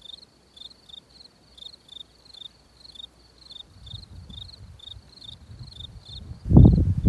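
An insect chirping at a high pitch in a steady rhythm, about three chirps a second. Near the end, wind buffets the microphone loudly.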